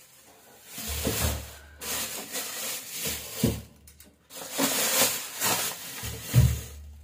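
Thin plastic carry bags crinkling and rustling in several separate bursts as vegetables are pulled out of them, with a few soft knocks as items are set down.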